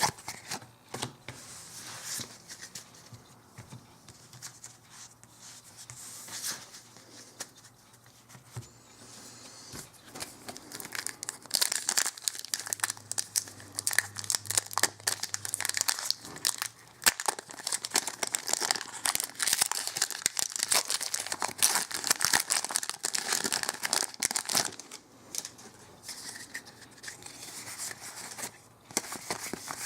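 Foil booster pack wrapper of a Magic: The Gathering card pack crinkling and tearing as it is opened by hand, faint at first and louder and busier through the middle stretch.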